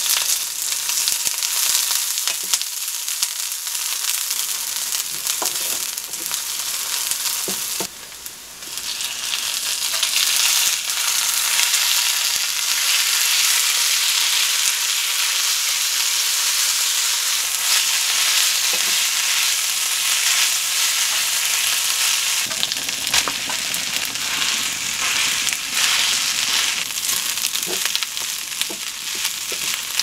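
Oil sizzling in a non-stick frying pan as sliced green onion fries, then kimchi pork stir-fry and rice being stir-fried with a wooden spatula, with scattered scrapes and taps of the spatula on the pan. The sizzle dips briefly about a quarter of the way in, then comes back louder.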